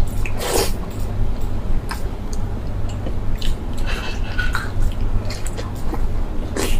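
A person chewing food close to the microphone, with scattered wet smacks and clicks of the mouth, over a steady low hum.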